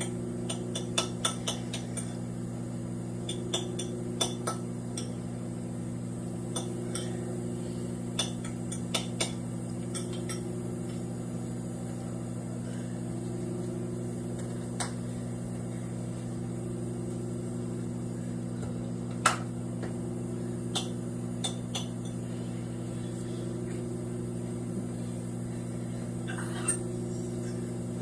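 Microwave oven running with a steady hum while the apple inside sizzles and pops: a quick flurry of sharp pops in the first few seconds, then occasional single pops.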